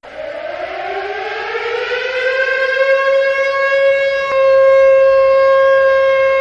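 Warning siren winding up from a low pitch, rising steadily over about four seconds, then holding a steady, louder wail.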